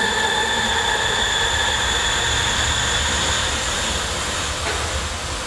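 A steady low rumbling drone with several sustained high tones over it, slowly fading out near the end.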